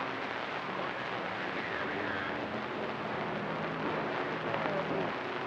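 CB radio speaker putting out a steady hiss of static mixed with a garbled, distorted transmission: someone playing audio into a microphone held up to a speaker, which makes it sound terrible on the narrow 3 kHz channel.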